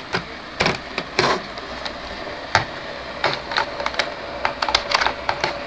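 Irregular sharp plastic clicks and handling noise as fingers work the memory-card slot and its cover on a cheap plastic camcorder.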